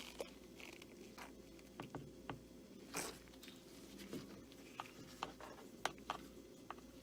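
Faint, scattered small taps and scrapes of a paintbrush against a bath bomb and paint pot during hand-painting, with a slightly longer scrape about three seconds in.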